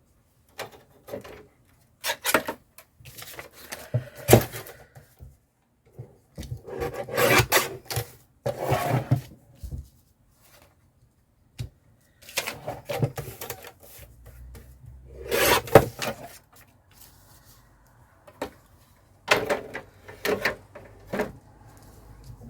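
Paper and craft materials being handled on a desk: irregular rubbing and scraping with a few sharp knocks, in short spells separated by pauses.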